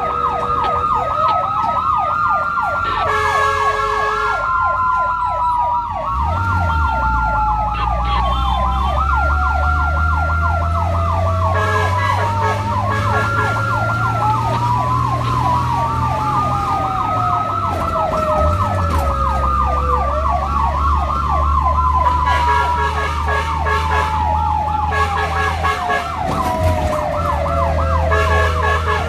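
Fire-and-rescue vehicle sirens sounding while responding: a fast repeating yelp with a slower wail sliding down and up over it, plus short bursts of a pulsing tone around the middle and near the end. A vehicle engine rumbles underneath.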